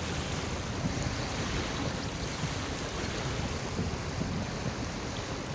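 Small waves lapping on a sandy beach, with wind buffeting the microphone in an uneven low rumble.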